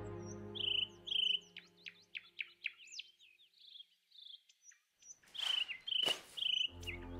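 Birds chirping and whistling in quick, short, high calls, some falling in pitch, as soft music fades out at the start and comes back near the end. About five seconds in come two brief rustling swishes from a newspaper landing on the floor.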